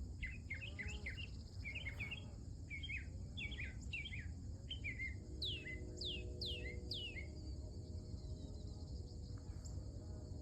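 Northern mockingbird singing: quick chirped phrases, each repeated several times, ending in a few falling whistles and stopping about seven seconds in. A steady, high insect drone runs underneath.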